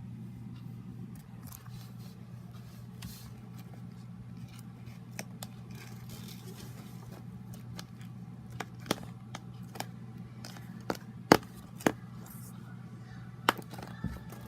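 Slime being handled by hand, giving scattered sharp clicks and pops, more of them in the second half, over a steady low hum.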